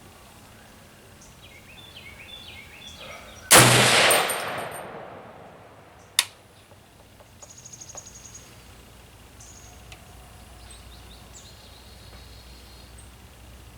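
A single shot from an M1A rifle firing .308 ammunition about three and a half seconds in, its report rolling away over about two seconds. A short sharp click follows a couple of seconds later.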